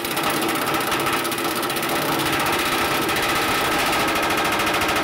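Pneumatic rivet gun hammering rapidly and steadily on a hot steel rivet, forming the rivet's head to close a riveted steel joint.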